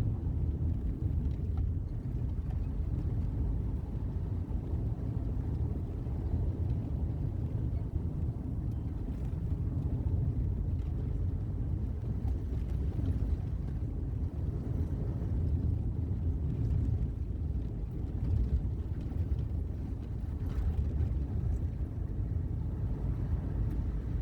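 Steady low rumble of road noise from inside a moving car.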